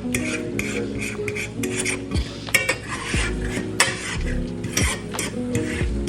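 A metal utensil clinking and scraping against a pan while stirring food, with light sizzling, over background music with held notes and a deep beat.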